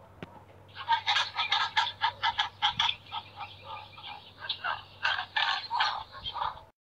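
Pelicans calling: short calls in quick succession, several a second, in two bursts with a lull between them, cutting off abruptly at the end.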